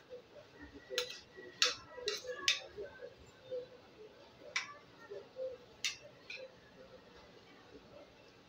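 A handful of sharp clicks at uneven intervals, several close together in the first half and a few more spread out later, over a faint murmur.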